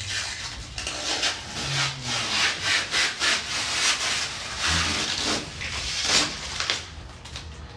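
Irregular rubbing and scraping strokes of hands working on a PC case and its parts, dying down near the end.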